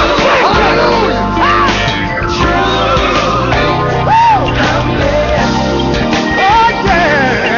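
Live gospel music: a band playing steadily with a singer's wordless runs gliding up and down over it.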